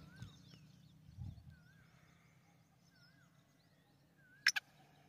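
Black francolin giving a short, loud, harsh double note about four and a half seconds in. Behind it, faint birdsong: a wavy whistle repeated about every second and a half, and high chirps.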